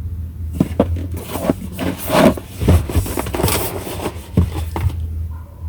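Irregular scraping and rubbing with a series of light knocks and clicks as objects are handled and moved about, over a steady low hum.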